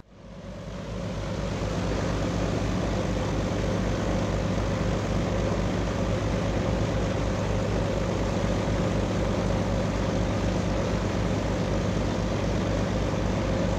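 A flying boat's propeller piston engines running in flight: a steady drone with a fast, even low throb, fading in over the first couple of seconds and then holding level.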